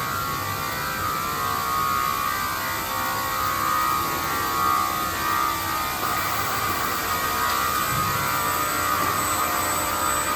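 Rack beam roll forming machine running: its gearbox-driven forming rollers and servo motor make a steady whir and hum with a high whine.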